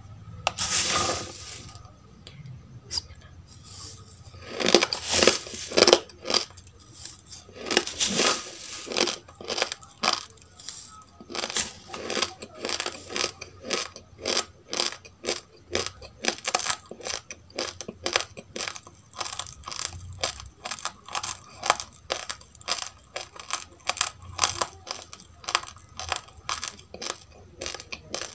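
Dry roasted rice crunched between the teeth close to the microphone, in steady crisp chewing at about two crunches a second. In the first ten seconds a few longer rustling bursts of the dry grains come before the chewing settles in.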